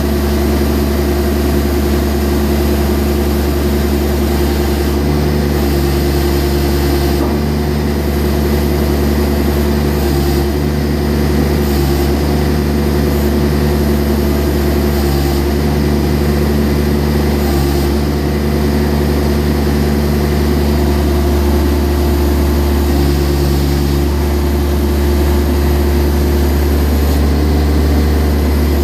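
John Deere X495 garden tractor's diesel engine running steadily while working the backhoe, with a lower hum that cuts in and out several times.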